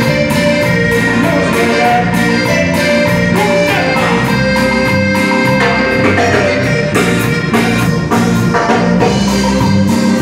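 Live band playing dance music, with congas and bass guitar over a steady, even beat.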